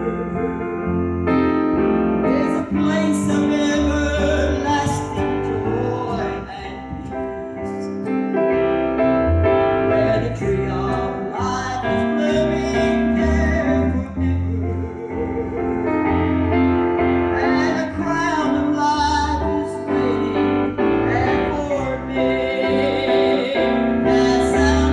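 A woman singing a slow gospel song with piano accompaniment, her held notes wavering with vibrato over a steady bass line.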